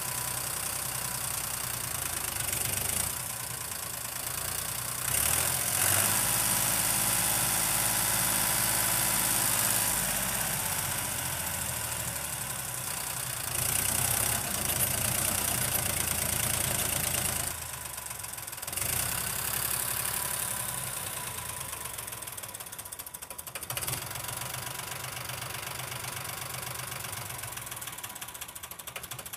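Farmtrac 30 tractor's diesel engine running steadily while it pulls a spring-tine cultivator through the soil. It swells louder for a few seconds at a time, then settles back.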